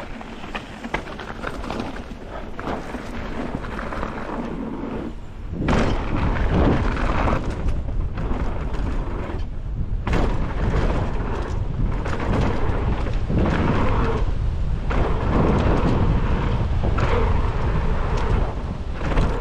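Wind buffeting a helmet-mounted camera's microphone while a mountain bike rides down a rough trail, with the bike rattling and knocking over the ground; it gets much louder about six seconds in as the speed picks up.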